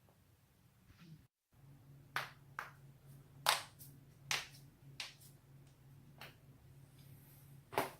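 A run of sharp joint cracks, about eight separate pops irregularly spaced, the loudest about three and a half seconds in, over a faint low hum.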